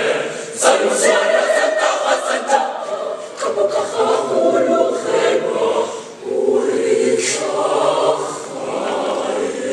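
Mixed school choir singing unaccompanied in parts, with crisp sibilant consonants and a short break between phrases about six seconds in.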